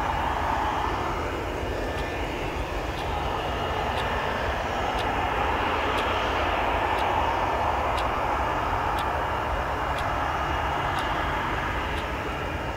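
Jet airliner engines running with a steady rushing hum, as heard on an airport apron. A faint tick sounds about once a second throughout most of it.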